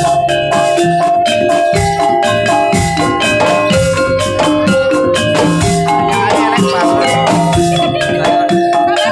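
Jaranan gamelan ensemble playing at full volume: quick runs of bright struck metallophone notes over frequent drum strokes, in a steady driving rhythm.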